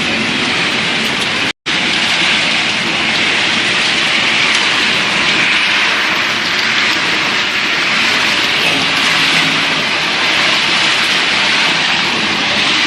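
Dog food extrusion production line running: a loud, steady machinery din with a hiss-like rush, cut off for an instant about a second and a half in.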